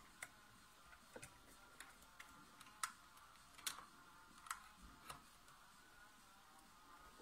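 Light plastic clicks and taps, about nine of them, as a USB cable plug is pushed into the solar power bank's port and hands handle its rubberised plastic case; the loudest click comes about three seconds in, and they stop after about five seconds.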